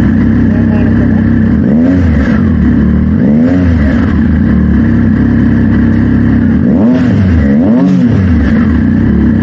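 Motorcycle engine idling steadily, blipped four times, each rev rising and dropping straight back to idle, twice close together about two and three and a half seconds in, then twice more near seven and eight seconds.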